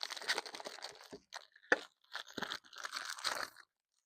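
Packaging being handled during an unboxing: paper rustling and crinkling in two spells, with one sharp knock about halfway through.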